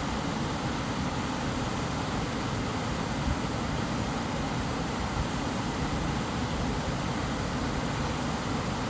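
Steady white-noise sleep track: an unchanging rushing hiss with a deeper rumble underneath.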